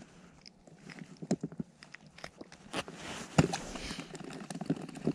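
Close handling sounds of an angler unhooking a freshly caught perch on the ice: clothing rustling and snow crunching, with scattered small clicks and one sharp knock about three and a half seconds in.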